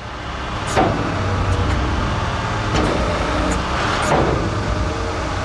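Engine of a 5-ton food-waste collection truck running and driving its hydraulic lift system as the control levers are worked: a steady low hum that grows louder in the first second, with a few knocks from the lift mechanism about 1, 3 and 4 seconds in.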